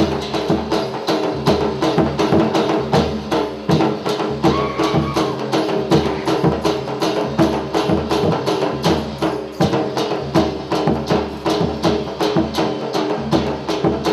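Gujarati folk dance music: fast, even percussion strokes, about five a second, over sustained instrumental tones.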